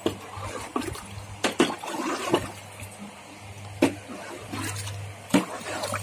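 Wet cattle feed, wheat porridge with soaked oilcake, sloshing as it is stirred by hand in large metal pots, the stirring stick knocking sharply against the pot about eight times.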